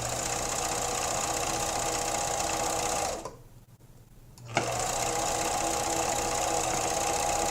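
Viking 6010 sewing machine running at a steady speed. It stops about three seconds in, then starts again a second and a half later with a click and keeps running.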